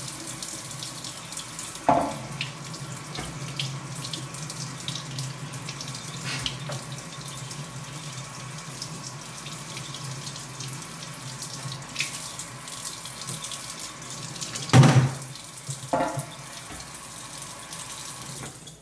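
Kitchen faucet running a steady stream of cold water onto a scored glass wine bottle in a stainless steel sink, part of alternating hot and cold water to crack the bottle along its score line. A few sharp knocks break in: one about two seconds in, the loudest a little before the end.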